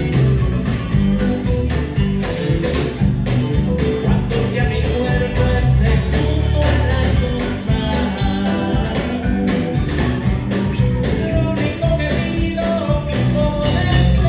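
Live dance band playing a Latin-style song, with electric guitar, bass and drums keeping a steady beat.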